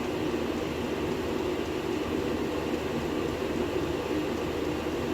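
Diesel air heater running steadily on its highest setting, a continuous roar of air blowing out with no knocking or ticking.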